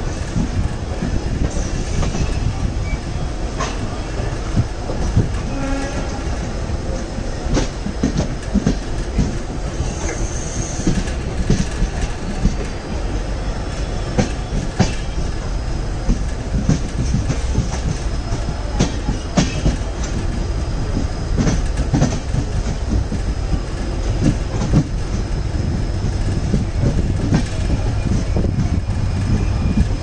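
Train wheels rolling over rail joints: a steady rumble with repeated clacks and knocks, and a brief high wheel squeal about ten seconds in.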